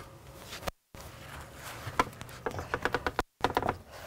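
Light knocks and clatter of freshly sawn elm slabs being handled on a trailer, a scatter of short wooden clicks bunched in the second half, broken twice by brief dead silences.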